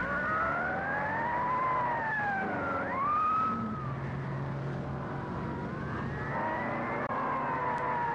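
Emergency sirens wailing, rising and falling in pitch and overlapping one another, over a low steady drone, on a thin-sounding old film soundtrack.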